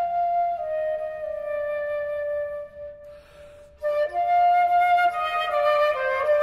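Background music: a slow melody of long held notes stepping down in pitch, fading low about three seconds in. A fuller, louder phrase with several parts sounding together begins about four seconds in.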